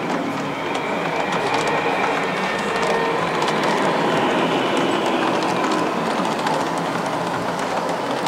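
Large-scale model train, a diesel locomotive hauling passenger coaches, running past on the layout track. Its wheels make a steady rumble on the rails, with many light clicks and a faint steady whine; the sound grows a little louder about a second in.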